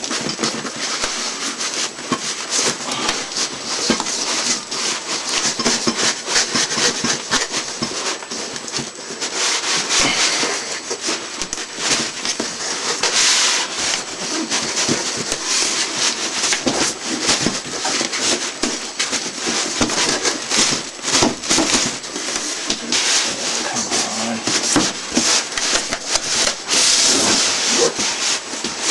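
Unboxing noise: cardboard and styrofoam packing being pulled and handled. It makes a continuous, uneven rustling and scraping with many small knocks.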